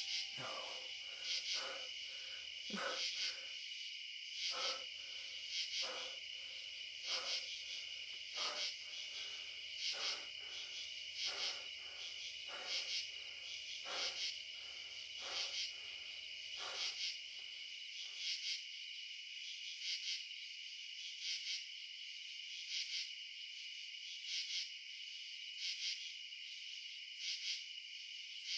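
Night insect chorus: a steady high trill with louder chirping pulses about every second and a half. A faint low rumble underneath stops about two-thirds of the way through while the insects carry on.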